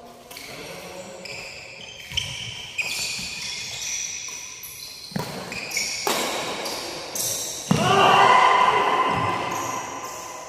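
Badminton rally on a wooden court: rubber-soled court shoes squeaking in many quick high chirps, with several sharp racket hits on the shuttlecock. About eight seconds in, a loud hit is followed by a loud shout.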